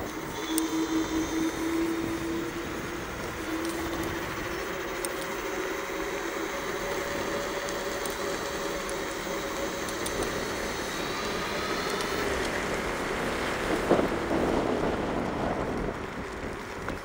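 Bluetran Lightning's electric motor whining steadily while ridden along a paved path, its pitch creeping up slightly, over a bed of wind and tyre noise. A short thump comes about fourteen seconds in.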